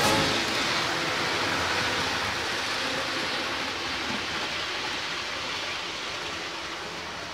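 Model diesel train running along the track and drawing away: a steady rushing noise of wheels on rails and the motor, slowly fading as it recedes.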